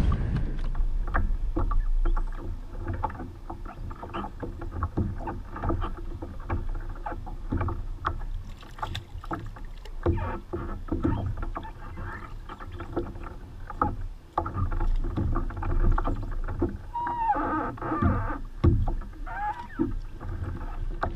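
Water lapping and slapping against a plastic fishing kayak's hull on choppy water, with irregular small knocks from gear aboard over a low rumble. A couple of brief squeaks come near the end.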